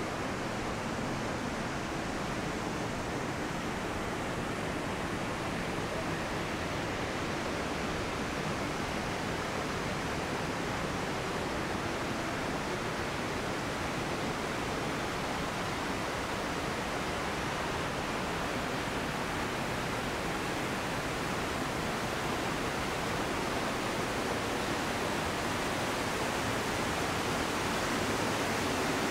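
Steady rushing of a waterfall, a dense unbroken roar of falling water that grows slightly louder near the end.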